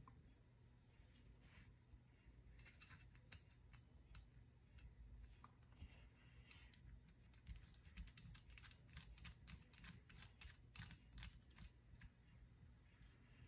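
Light, quick clicks and taps of a Yamaha Grizzly 660 carburetor's metal body and small brass parts being handled and fitted by hand. The clicks come in dense runs from about three seconds in until about eleven seconds.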